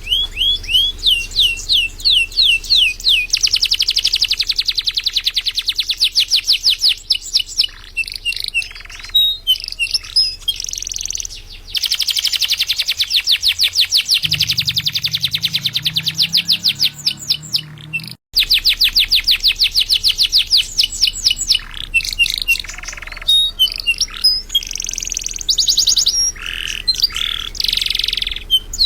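Canary singing a long, continuous song of fast, high-pitched rolling trills and rapidly repeated notes, switching from one tour to the next every second or two.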